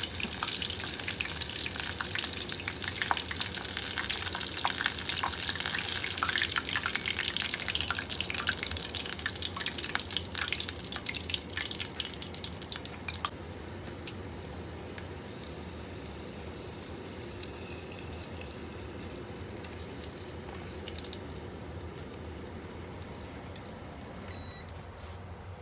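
Battered tofu pieces deep-frying in a small pot of hot oil: a dense sizzling hiss full of small crackles. About halfway through, as the last pieces are lifted out, it dies down to a quieter sizzle with only scattered crackles.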